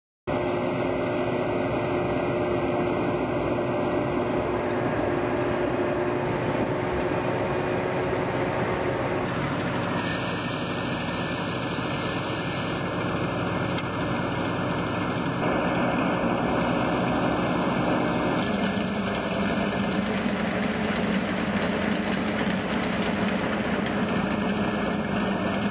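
Engine of a BM-27 Uragan rocket launcher truck running steadily at idle, a low continuous hum with a faint steady drone. Its tone shifts abruptly a few times across the edited shots.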